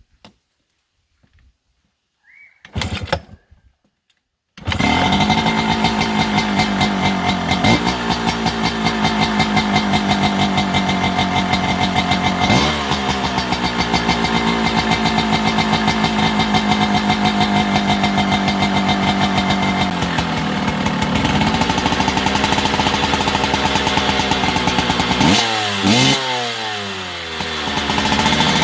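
KTM 250 two-stroke dirt bike engine. It comes in suddenly after a few seconds of near silence, runs with the throttle blipped a few times, then is revved quickly several times near the end.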